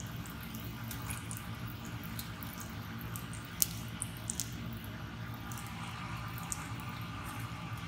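Horumon (offal) frying in a pan of hot oil: a steady sizzle with scattered crackles and spits, and one sharp pop about three and a half seconds in.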